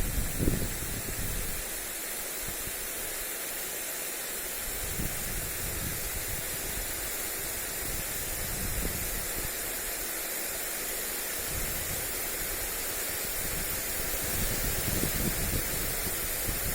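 Lawn sprinkler spraying water onto grass, a steady hiss of spray, with gusts of wind buffeting the microphone about the start and again toward the end.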